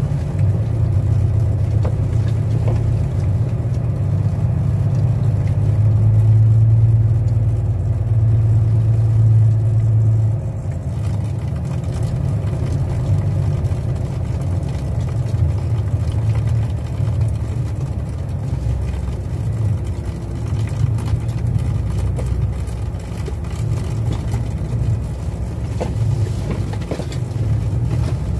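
Truck engine running steadily as the truck drives slowly over a dirt track, heard from the cab: a continuous low drone that eases off slightly about ten seconds in.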